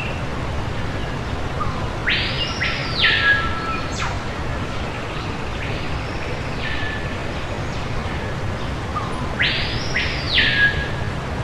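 Soundtrack of a steady hiss and low rumble with a high whistling tone that sweeps up, holds, and drops back down. The whistle comes strongly about two seconds in and again near the end, with a fainter echo of it in between.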